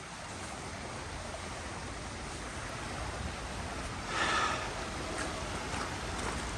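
Steady rushing of a river swollen by flooding. About four seconds in, a brief louder sound rises over it.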